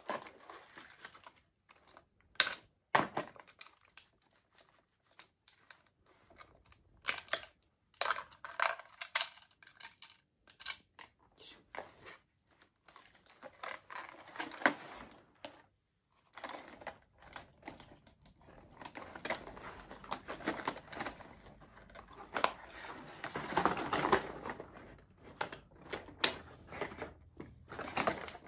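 Scattered clicks and knocks of small plastic toy pieces being handled, with cardboard packaging rustling and scraping as it is shifted and pulled apart, mostly in the second half.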